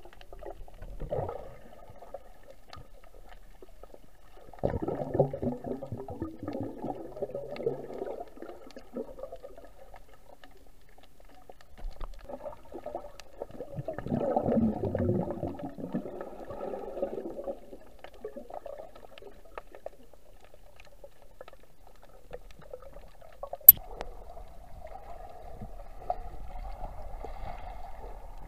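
Muffled water gurgling and sloshing as picked up by a camera under water, swelling twice, with a single sharp click late on.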